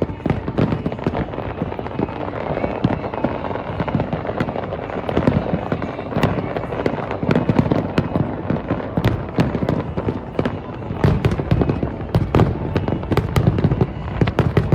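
Aerial fireworks display: a dense, near-continuous volley of bangs, booms and crackles, coming thicker toward the end.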